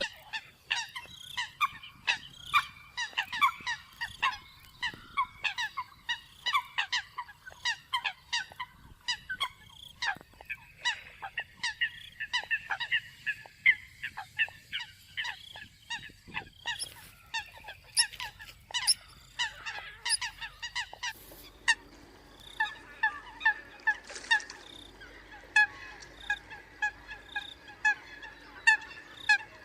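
Eurasian coots calling: a dense run of short, sharp, honking calls from several birds overlapping. About two-thirds of the way through it changes to a steadier series of evenly spaced calls.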